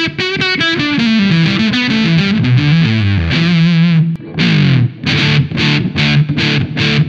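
Electric guitar played through an engaged Supro Fuzz pedal (silicon and germanium fuzz) into a Supro amp. It plays a descending run of single notes ending on a wavering held note, then fuzzy strummed chords in a steady rhythm from about four seconds in.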